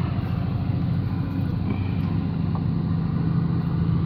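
A boat engine running steadily, a low rumble that holds throughout.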